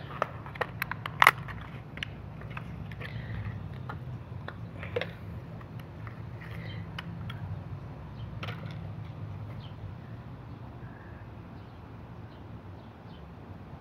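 Scattered small clicks and taps from a fishing lure and its packaging being handled, with a cluster in the first second or so, over a steady low hum.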